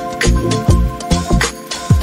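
Background music with a steady beat: deep bass drum hits and sharp snare-like hits over held tones, with a bass note sliding down near the end.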